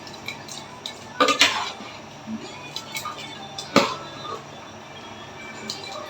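Kitchen utensils and cookware clinking and knocking together: a quick cluster of clatters about a second and a half in, a single sharp knock near four seconds in, and lighter ticks between.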